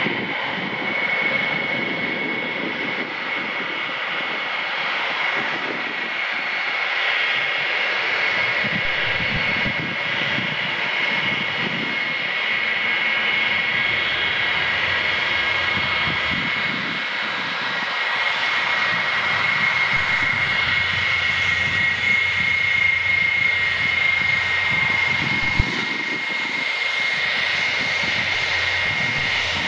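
Boeing E-3A AWACS's four TF33 turbofan engines at taxi power: a steady high whine over a low, uneven rumble. There is a single sharp click near the end.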